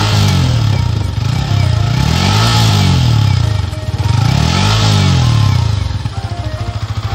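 Yamaha MT15's single-cylinder engine revved through its stock exhaust three times, the pitch rising and falling with each blip of the throttle, then dropping back to a steady idle near the end.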